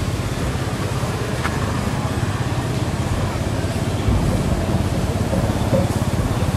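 Steady rumbling outdoor background noise with a strong low-end hum, without distinct calls or impacts.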